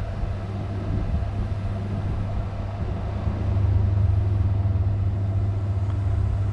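Steady low hum from an off-grid inverter with its cooling fans running under a heavy load of about 110 amps (roughly 1,400 watts) from a 12-volt battery, mixed with gusty wind rumbling on the microphone. The hum gets a little louder about three and a half seconds in.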